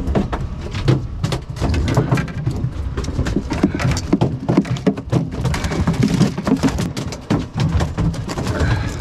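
A freshly landed dolphinfish (mahi-mahi) going nuts in the boat, its body and tail slapping and drumming against the hull in rapid, irregular knocks.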